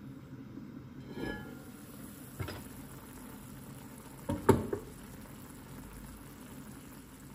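Lid of an enamelled cast-iron casserole lifted off with a ringing metallic scrape about a second in, then knocks of the heavy lid, the loudest cluster about four and a half seconds in. Underneath, a pot of stew simmering with a steady low bubbling.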